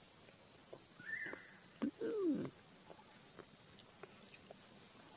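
Steady, high-pitched drone of insects, with a few faint clicks and short voice-like sounds over it.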